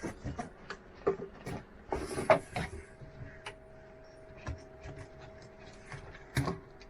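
Hand work on a bunk's storage lid: scattered clicks and knocks, with a short scraping burst about two seconds in, over a faint steady hum.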